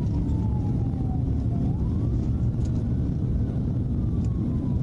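Police car siren wailing: its pitch falls, rises again about halfway through, then falls. It is heard through the patrol car's dashcam over a steady loud rumble of engine and road noise.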